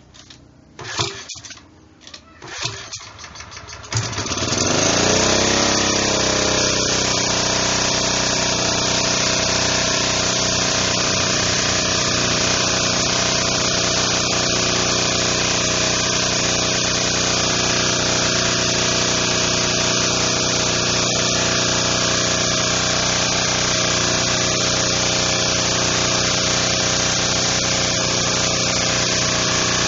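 Firman FPG1500L four-stroke gasoline generator being pull-started. A few recoil pulls, then it catches about four seconds in, revs up and settles into steady running.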